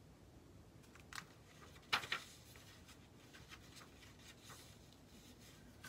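Pages of a hardcover picture book being turned and handled: a few faint rustles and taps, the loudest about two seconds in.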